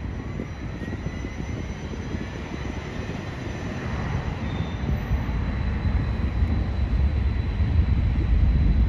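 Tram running along its track, with a faint rising motor whine in the first half, under a low rumble that grows steadily louder toward the end.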